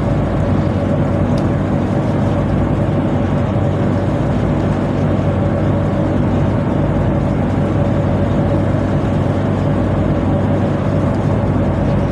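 Tugboat machinery running with a steady, loud, even drone.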